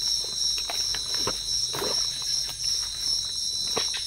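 A steady, high-pitched chorus of night insects such as crickets, with irregular crunches and rustles of footsteps through leaf litter and undergrowth.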